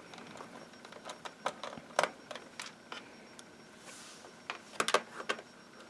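Scattered light clicks and taps of a small precision screwdriver working the screws of a laptop's plastic bottom cover, with a sharper click about two seconds in and a quick run of clicks near the end.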